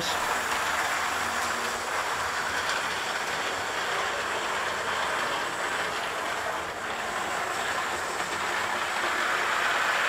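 Model railway locomotives, a Class 37 and a Deltic, running round the track: a steady running noise of their motors and wheels on the rails.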